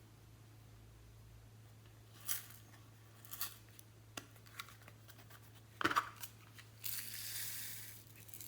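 Glossy slime being handled and mixed: a few soft sticky clicks and pops, a sharper crackle about six seconds in, then about a second of rustling.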